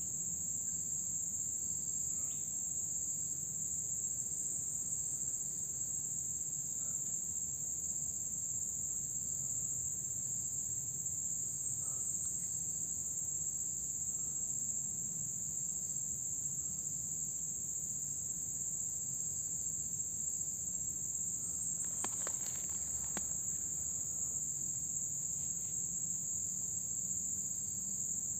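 Steady high-pitched insect chorus, a continuous shrill that never pauses, with a faint low rumble beneath and a couple of faint ticks about three-quarters of the way through.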